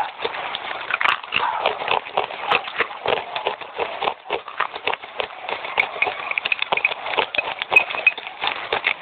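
Fast, wet crunching of red clay chips being chewed, an irregular run of sharp crackles several times a second.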